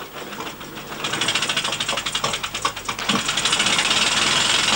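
Vintage sidecar motorcycle's engine running with rapid, even firing beats, becoming much louder about a second in and staying loud.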